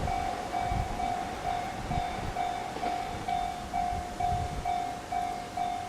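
Japanese level-crossing warning bell ringing steadily, about two dings a second, while a train runs past with uneven low rumbling noise.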